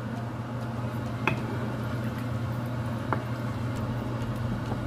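Rice soup bubbling at a boil in a nonstick pan, with a couple of small pops over a steady low hum.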